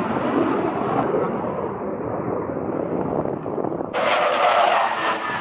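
Su-30MK2V twin-turbofan fighter jet's engines heard in flight, a broad rushing jet noise whose top end slowly dulls. About four seconds in it switches abruptly to a brighter, harsher jet sound with a faint whine.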